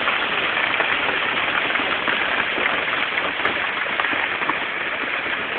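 Heavy rain pouring down: a dense, steady rush of rain with many small ticks of drops striking surfaces.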